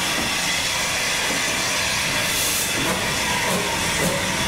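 LMS Jubilee Class 4-6-0 steam locomotive 45596 'Bahamas' hissing loudly as steam blows from its open cylinder drain cocks while it moves slowly. The hiss swells about halfway through.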